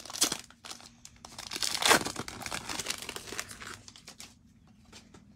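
Plastic wrapper of a Mosaic football card pack being torn open and crinkled, with the loudest tear about two seconds in, then quieter handling as the cards come out.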